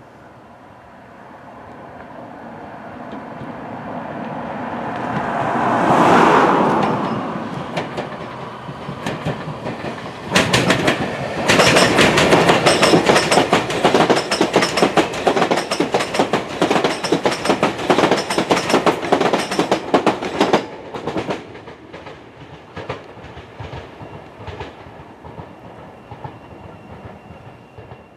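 Tobu 500 series Revaty electric limited express train passing close by. The sound builds up to a first peak about six seconds in, then comes a loud, dense stretch of rapid wheel clatter over rail joints lasting about ten seconds, which fades away as the train recedes.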